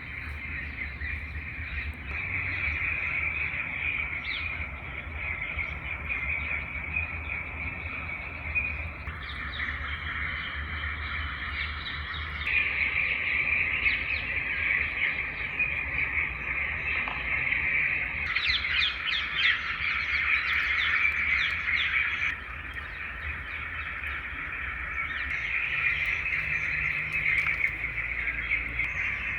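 Dense outdoor chorus of birds chirping continuously, changing abruptly several times, with a faint low rumble underneath.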